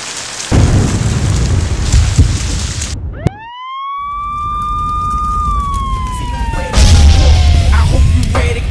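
A siren winds up quickly to a high wail, holds it for about two seconds, then slowly falls in pitch. Before it, a loud rushing noise cuts off abruptly, and a heavy beat comes back in near the end.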